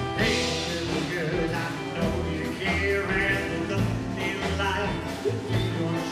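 Live rockabilly band playing: a man singing over strummed acoustic guitar, a bass line and drums.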